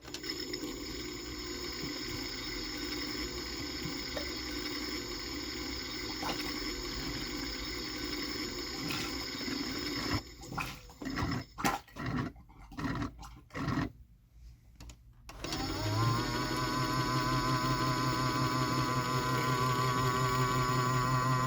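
AEG/Electrolux Lavamat 84950 washing machine's drain pump emptying the final rinse water at the start of the final spin: a steady flow that breaks into gurgling spurts and pauses as the sump runs dry and the pump draws air. About a second later the drum motor starts with a rising hum that settles to a steady tone.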